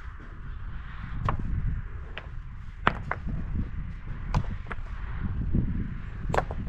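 About six sharp knocks at uneven intervals, over a steady low rumble.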